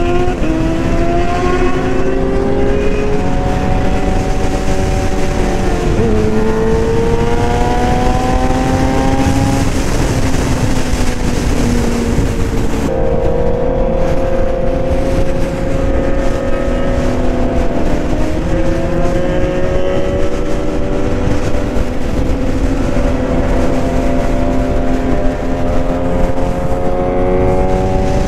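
Suzuki GSX-R 750 inline-four engine running at freeway speed, its pitch climbing and falling with the throttle, with a sharp change about six seconds in and another about thirteen seconds in. A steady rush of wind noise runs under it.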